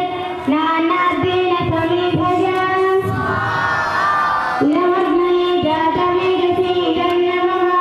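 A group of children's voices chanting homam mantras in unison, long notes held at a steady pitch. About three seconds in, a higher wavering stretch comes in before the steady chant resumes.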